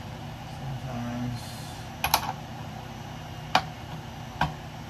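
A few sharp clicks and knocks of small hard objects: a quick cluster about two seconds in, then single knocks about a second and a half and two and a half seconds later, over a low steady background hum.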